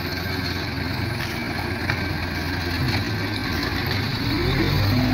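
Hyster forklift's engine running steadily as the truck drives with a load on its forks, revving up near the end.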